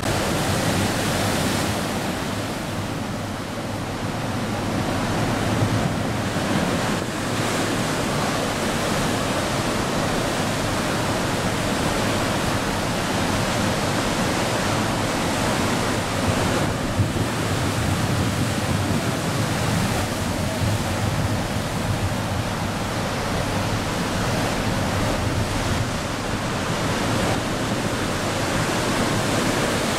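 Steady roar of large ocean waves breaking, with wind rumbling on the microphone.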